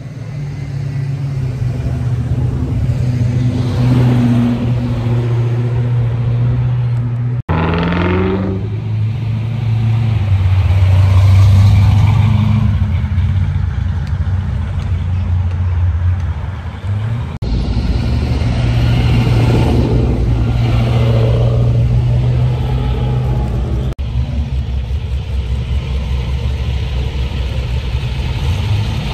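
Car engines running with a low, steady rumble, including one short rising rev about eight seconds in. The sound changes abruptly three times.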